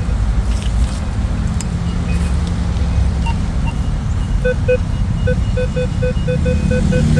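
A metal detector beeping in a run of short, evenly spaced beeps, about three a second, starting a little past halfway: it is signalling a metal target close by in the spot being dug. Under it, a steady low rumble.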